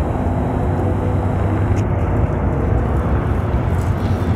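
A steady low rumble of outdoor background noise.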